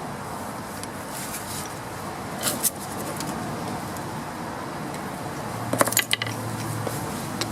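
A few short metallic clinks, a pair about two and a half seconds in and a cluster near six seconds, over steady background hiss, with a low steady hum starting shortly before the later clinks.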